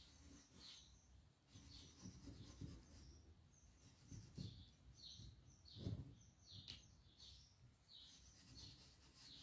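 Near silence with faint, repeated high bird chirps, each falling in pitch, and a couple of soft knocks from about halfway through.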